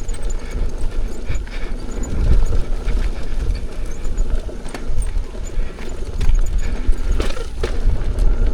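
Wind buffeting the microphone of an electric unicycle rider in motion, with scattered knocks and rattles as the wheel runs over a rough dirt trail.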